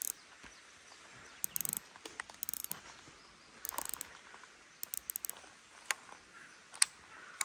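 Faint outdoor hiss broken half a dozen times by short bursts of rapid, sharp clicking.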